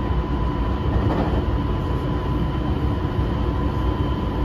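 Running noise heard inside a JR West 223 series 2000 motor car travelling between stations: a steady rumble of wheels on rail, with a steady high whine.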